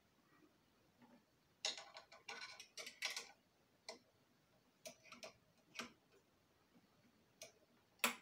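Metal hand tools clicking and clinking against compressor parts as they are handled: a quick run of clicks about a second and a half in, then single clicks every second or so.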